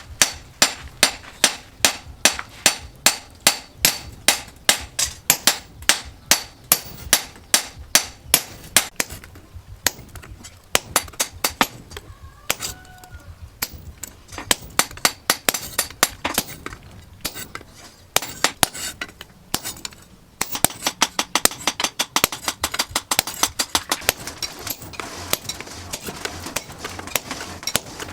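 A hammer striking metal over and over with a ringing clink on each blow, about two or three blows a second at first, thinning out midway, then coming faster and lighter near the end.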